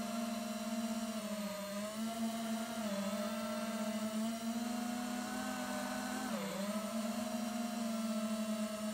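FPV mini quadcopter's brushless motors and propellers whining steadily, the pitch dipping briefly with throttle changes, most deeply about six and a half seconds in.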